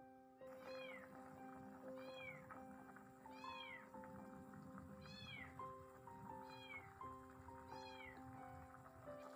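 A cat meowing repeatedly: six faint, short meows, each rising and falling in pitch, about a second and a half apart. Soft background music plays under them.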